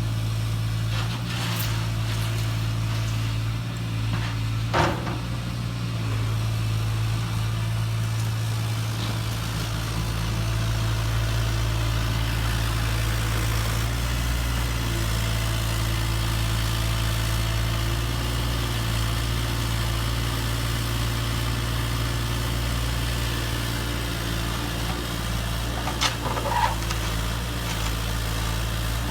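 Radio-controlled construction models running: a steady low drone like an idling engine, with a brief click about five seconds in and a couple more near the end.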